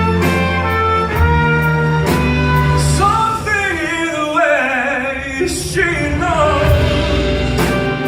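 Live band music with singing: sustained chords and bass under a melodic line that bends and wavers through the middle.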